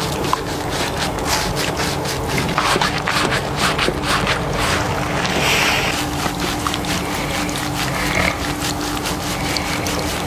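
A man snoring during a head-spa scalp treatment, over the wet rubbing and crackle of hands working on his scalp.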